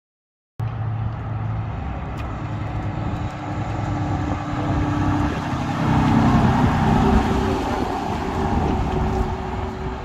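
Vintage bus engine running as the bus drives past and away. It cuts in suddenly after half a second of silence, grows louder to a peak about six to seven seconds in, then fades.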